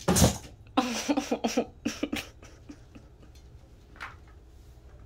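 A person's voice in short bursts: one loud breathy burst right at the start, then a quick run of about eight short pitched huffs over a second and a half. There is a faint short sound near the end.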